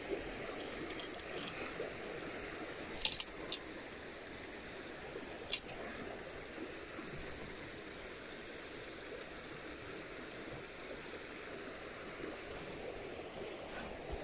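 Steady low rush of flowing creek water, with a few sharp little clicks from a spinning reel and rod being handled, about three seconds in and again at five and a half seconds.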